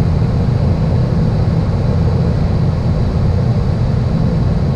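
Steady low rumble of airflow and engine noise on the flight deck of an Airbus A380 on short final approach, just after decision height.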